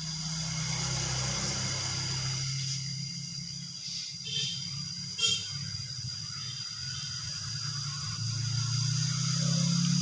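Steady high-pitched insect trill, cricket-like, with a low uneven hum underneath and two brief sharp sounds about four and five seconds in.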